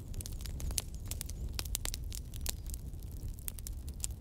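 Wood fire crackling, with many irregular sharp pops over a low rumble.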